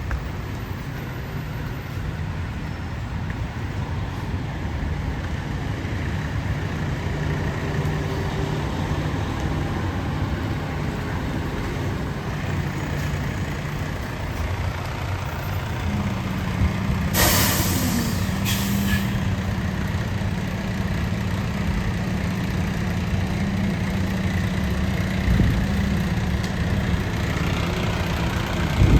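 Heavy diesel fire truck running with a steady low rumble. A steadier hum joins it about two-thirds of the way through, and air brakes hiss twice in quick succession just after.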